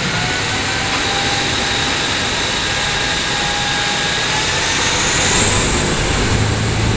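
Ferry's engines working hard as it pulls away from the wharf: a loud, steady rushing noise with faint whining tones, one of which rises in pitch near the end, over churning propeller wash.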